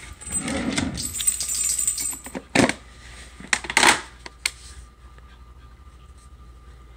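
Clattering and rattling of small hard objects being handled at a desk. Sharp knocks come a little over two and a half seconds in and again around four seconds in, and it goes quieter in the last couple of seconds.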